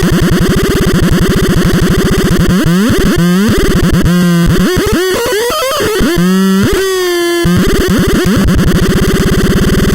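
Electronic noise synthesizer playing a harsh, rapidly pulsing buzz. From about two and a half seconds in it sweeps up and down in pitch, holding a couple of steady tones briefly, then settles back into the fast pulsing buzz about seven and a half seconds in.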